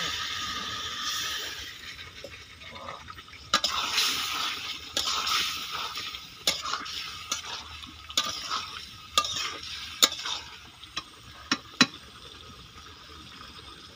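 A spatula stirs and scrapes a simmering chicken and potato curry in a kadai, clicking against the pan about a dozen times. The curry hisses steadily at the start.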